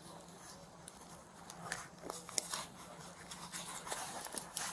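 Handcuffs being unlocked with a key and taken off the wrists: scattered light metal clicks and rattles, busier in the second half.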